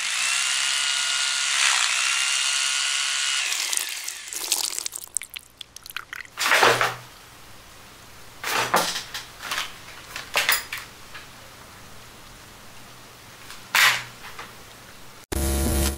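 Corded electric drill running at speed with a steady whine, rising briefly in pitch about two seconds in, then cutting off after three and a half seconds. It is followed by a quieter stretch with a few short sharp noises, the loudest about six and a half seconds in.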